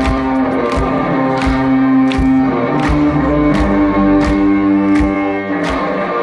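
Live rock band playing a slow, heavy groove through a concert PA, heard from the crowd. Drums hit steadily about once every three-quarters of a second under sustained guitar and bass notes.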